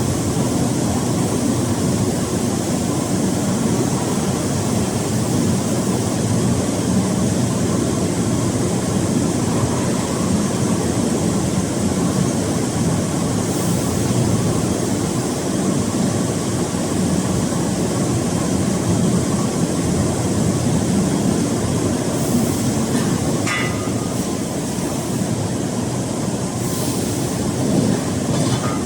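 Steady, even mechanical running noise of a hydraulic cotton baler, a continuous hum and rumble, with a few short clicks and knocks in the last several seconds.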